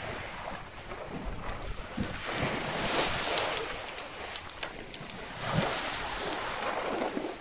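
Wind buffeting the microphone over the wash of sea water along the hull of a sailing yacht under way, swelling to a louder surge about three seconds in.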